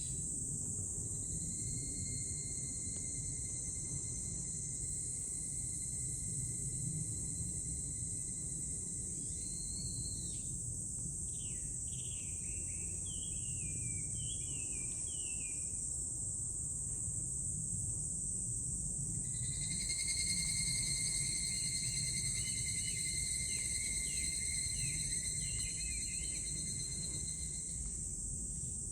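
Cicadas shrilling in a steady high-pitched drone, with bird song: runs of short falling chirps about halfway through and again near the end. A long steady tone sounds twice, each time for about eight seconds, over a low rumble of wind noise.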